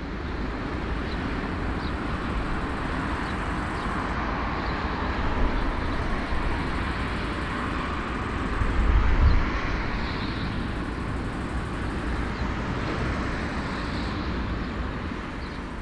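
Airbus A340-300 jet airliner taxiing, its engines running with a steady rumble and hiss that grows a little louder about nine seconds in.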